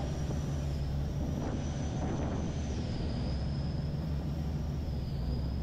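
Chao Phraya express boat's engine running steadily underway, heard from aboard as a continuous low drone with a thin high whine above it that rises and falls slightly.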